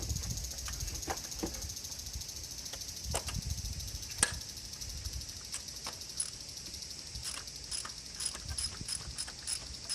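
Scattered light clicks and taps of hand tools at work, with one sharper click about four seconds in and evenly spaced ratchet-like ticks starting near the end, over a steady high-pitched hiss.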